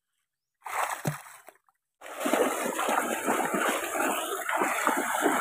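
Water splashing and sloshing in an uneven rhythm from about two seconds in, from someone wading through shallow water; before it, a short burst of noise between stretches of dead silence.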